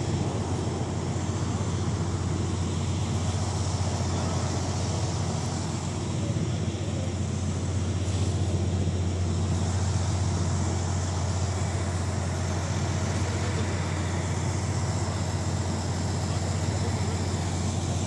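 Diesel engine of a 2008 Morbark 40/36 whole-tree chipper running at a steady speed, a constant low drone.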